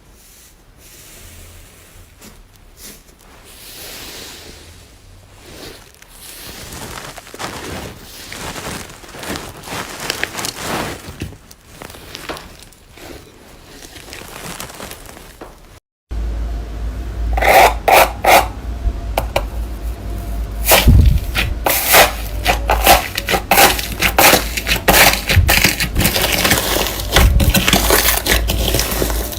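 Slime being pressed and worked by hand, making many small crackles, clicks and scraping sounds. About halfway through it cuts to a louder clip with denser crackling.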